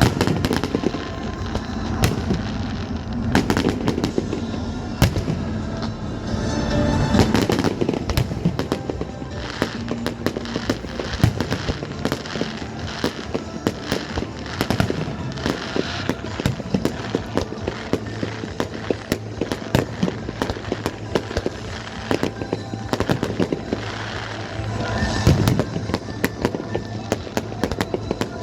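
Fireworks display: many sharp bangs and crackling bursts in quick, irregular succession, over music. The explosions come thickest a few seconds in and again near the end.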